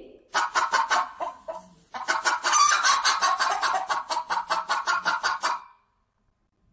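Hen clucking in quick runs, about five clucks a second: a short run about half a second in, then a longer, denser run from about two seconds in that stops about a second before the end.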